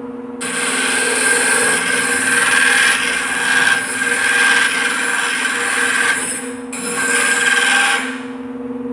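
Grinding wheel spinning with a diamond dresser held against its face to true it: a loud grinding hiss over the motor's steady hum, broken briefly about two-thirds of the way through and stopping about a second before the end. The wheel face is uneven, wearing on one side only, which the dressing corrects.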